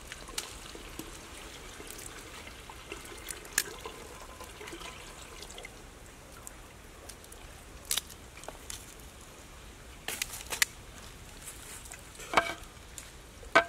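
Water poured from a bamboo tube into a clay cooking pot, trickling and dripping. Scattered sharp clicks and knocks run through it, with a cluster about ten seconds in and the loudest knocks near the end, as the pot's clay lid is handled.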